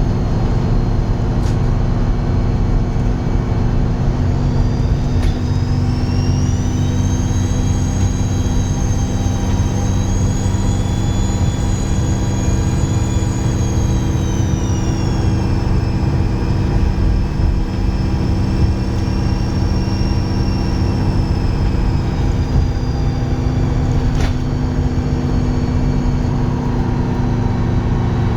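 Dennis Trident 2 double-decker bus's diesel engine running under load, a steady low drone topped by a loud high turbo whistle. The whistle rises about five seconds in, holds, then drops back and slowly falls away through the second half.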